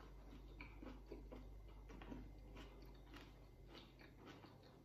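Faint close-mouthed chewing of a lettuce wrap with pork chop and cucumber: a run of small, irregular wet clicks from the mouth.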